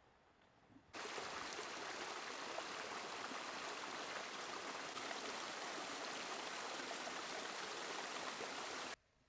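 Steady rushing of running water from a mountain stream. It comes in suddenly about a second in and stops abruptly near the end.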